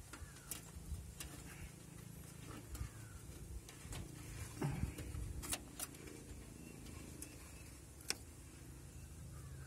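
Faint, scattered light clicks and ticks of hands handling wiring in a car's engine bay, over a low steady background hum; the sharpest click comes about eight seconds in.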